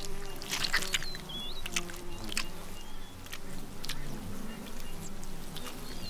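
Olive baboon chewing and smacking wetly on a honeycomb, a run of sharp clicking smacks, with bees buzzing in a low steady hum around it. A small bird chirps once about a second and a half in.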